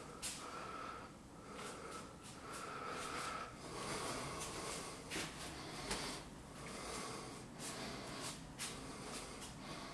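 Soft footsteps on hard floors and close, quiet breathing, with faint irregular clicks, as someone walks through quiet rooms.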